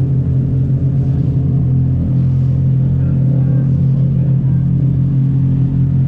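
An engine running at a steady speed: a constant low hum that holds the same pitch throughout.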